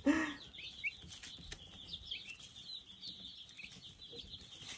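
A brooder full of day-old Black Australorp chicks and broad-breasted turkey poults peeping: many short, high cheeps overlapping without pause.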